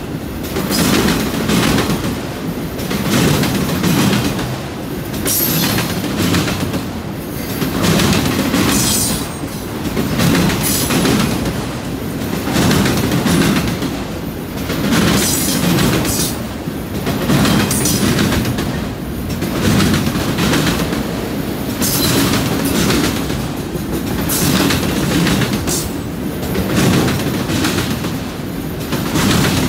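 Freight train of enclosed autorack cars rolling past close by: a loud, steady rumble and clatter of steel wheels on rail that swells and fades about every two seconds as each car goes by, with brief high-pitched wheel squeals now and then.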